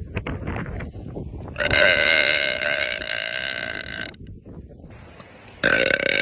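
A woman belching loudly. First comes a rough, gravelly belch, then one long drawn-out belch held at a steady pitch for over two seconds, and another loud belch begins near the end.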